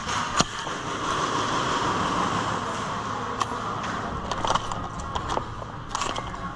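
Airsoft game sounds: a few sharp cracks and knocks, the loudest about half a second in, over a steady hiss.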